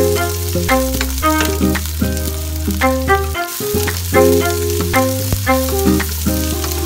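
Onion and garlic sizzling as they fry in oil in a nonstick pan, stirred with a wooden spatula, under background music with a steady beat and held bass notes.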